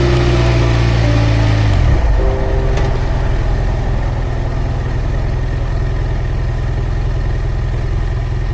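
BMW adventure motorcycle engine falling in pitch as the bike slows, then settling into a steady idle about two seconds in.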